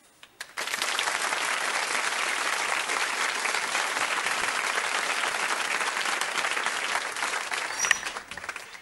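Audience applause: dense, steady clapping that starts about half a second in and dies away near the end.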